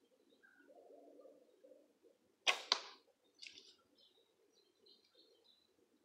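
An archer shoots a bow: two sharp cracks about a quarter second apart, the string released and the arrow striking. Faint bird chirps follow.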